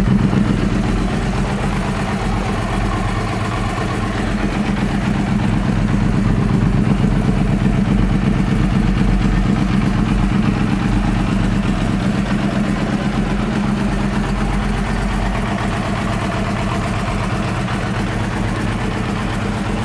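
2013 Yamaha YZF-R1's crossplane inline-four idling steadily through aftermarket Two Brothers Black Series twin exhausts.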